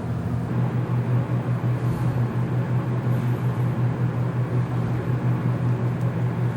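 A steady, low mechanical hum with a fast, even pulse, over a soft hiss of coolant running out through a drain hose into a plastic jug.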